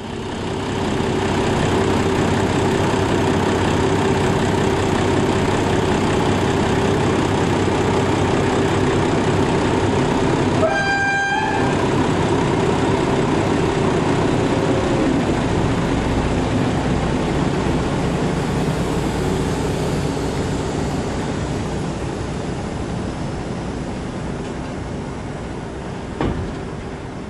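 A slow-moving rail vehicle rolling past close by, its wheels and running gear giving a steady loud noise that eases off toward the end. A short horn toot sounds about eleven seconds in.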